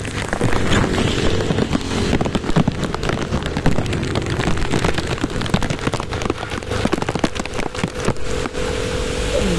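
Heavy tropical downpour: a dense, irregular crackle of raindrops striking close to the microphone over a steady rush of rain, with a low rumble underneath. A faint steady hum comes in about a second in.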